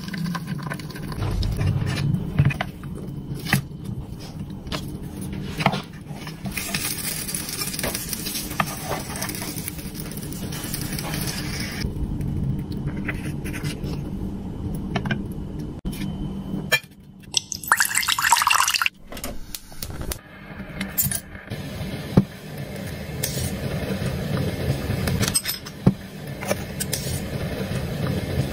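Small cooking sounds from a miniature kitchen set: egg cooking in a tiny pan, a wooden spatula scraping, and light clicks and clinks of little dishes, utensils and a steel pot lid. A stretch of steady hiss runs in the first half, and there is a louder noisy burst about two thirds through.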